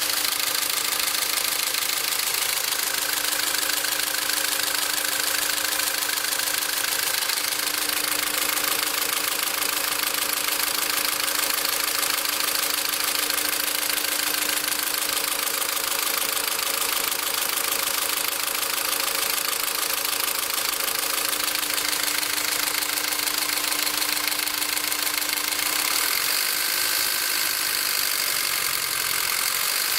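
Car engine running steadily at idle, with a constant hum-like tone over the running noise. This is the engine noise that persists after a second TCT repair.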